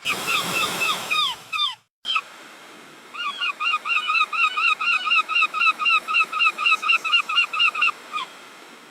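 Gulls calling over the wash of waves, then the sound cuts out briefly about two seconds in. After that a gull gives a long run of quick, evenly repeated calls, about four a second for some five seconds, and ends with one last call.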